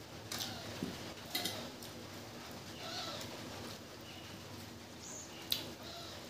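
Eating rice and curry by hand from a steel plate: fingers mixing and squishing rice, a few sharp clicks against the plate, and chewing. A bird calls briefly a couple of times.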